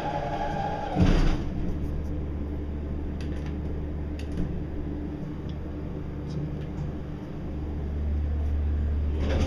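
Schindler glass hydraulic elevator descending: a high steady whine cuts off about a second in with a brief loud thump, then the car travels on with a steady low hum that fades a little midway and swells again near the end.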